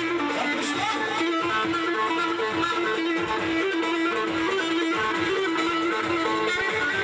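Loud Turkish folk dance music for a halay line dance: a plucked string instrument carries an ornamented melody over a steady beat.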